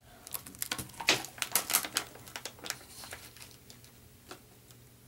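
A quick, irregular run of sharp clicks and taps that is densest at first, then thins out and stops about four seconds in.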